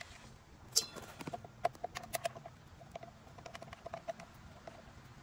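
A screwdriver working a small screw at the e-bike's battery mount: one sharp metal click about a second in, then a run of lighter clicks and taps, each with a short metallic ring, spread over the next few seconds.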